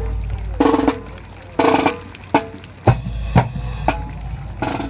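Precision rifle drill: sharp clacks of drill rifles being slapped, caught and struck in unison, about one a second, with short rattling bursts between them.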